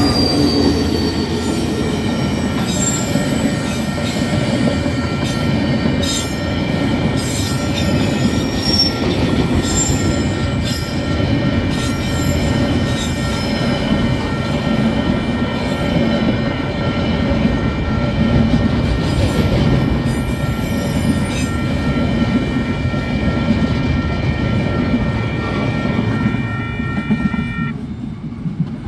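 Long freight train of container wagons rolling over a level crossing: a steady heavy rumble and clatter of steel wheels on the rails. Over it, the crossing's warning bells ring steadily and stop suddenly near the end as the last wagons clear.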